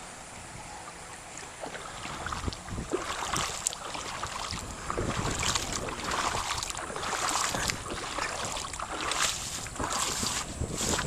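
Footsteps wading through shallow floodwater: irregular sloshing and splashing strokes that grow louder from about two seconds in.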